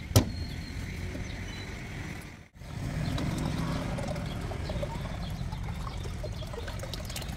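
A single sharp chop of a blade into a young coconut just after the start, followed by steady low background rumble. The sound drops out completely for an instant about two and a half seconds in.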